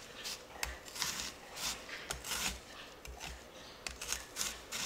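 Chef's knife slicing horizontally through a peeled shallot on a wooden cutting board: a run of short cutting strokes, about two or three a second, with faint knocks.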